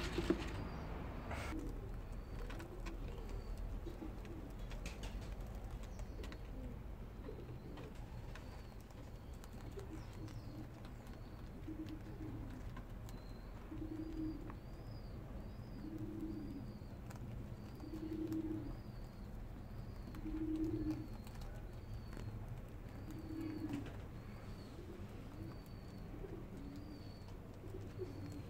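A dove cooing, a short low coo repeated about every two seconds, while a small bird chirps a thin high note over and over. A few sharp knocks sound in the first second and a half.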